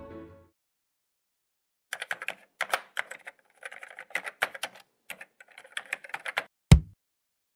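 Typing sound effect: irregular runs of sharp key clacks for about four and a half seconds, then one heavier thump near the end.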